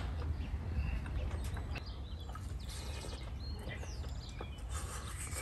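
Outdoor ambience: a steady low rumble of wind on the microphone, scattered small clicks, and a few high bird chirps about three to four seconds in.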